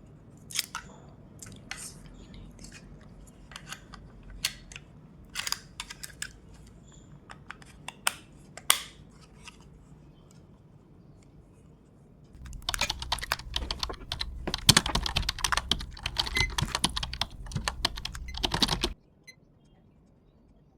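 Hands handling a digital timer and its packaging: scattered single clicks for the first nine seconds or so, then a dense run of clicking and rustling lasting about six seconds that stops abruptly.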